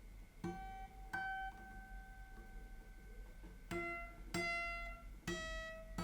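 Yamaha FG850 all-mahogany dreadnought acoustic guitar being fingerpicked: about five separate plucked notes and chords, each left to ring out.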